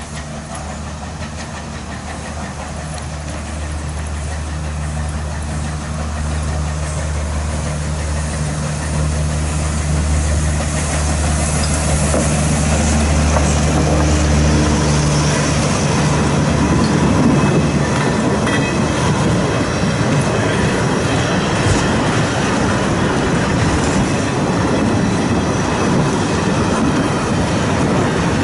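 Steam locomotive passing with its train of carriages. A steady low hum grows louder over the first half, then about halfway through it gives way to the rumble and clatter of wheels on the rails.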